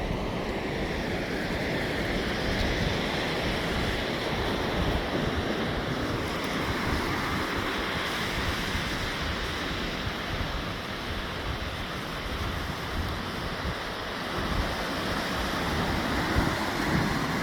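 Ocean surf washing onto a beach, a continuous rush of waves that swells and eases, with wind buffeting the microphone.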